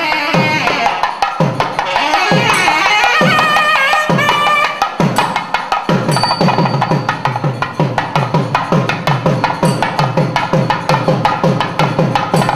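Tamil temple music of nadaswaram and thavil: a reed pipe plays a winding melody over drum strokes. The drumming quickens to a rapid beat about halfway through.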